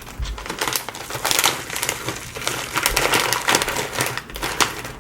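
Plastic Pretzel Crisps snack bag crinkling as it is handled and opened: a dense, irregular run of crackles.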